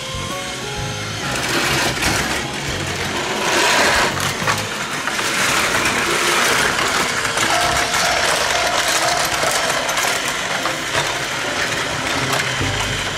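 Battery-powered Titipo toy trains running along plastic track, their small motors and gears whirring steadily, with background music playing.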